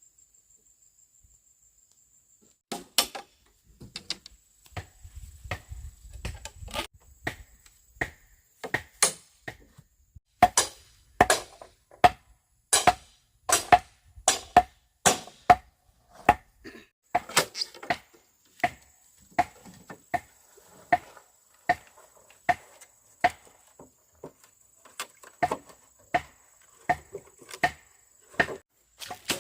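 Bamboo being chopped with a blade: steady, evenly spaced blows, about one and a half a second, each with a short hollow ring, starting about three seconds in.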